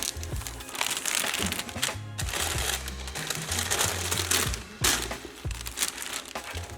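Background music with a heavy, steady bass line, over the crinkling of wrapping as a sneaker is unwrapped by hand.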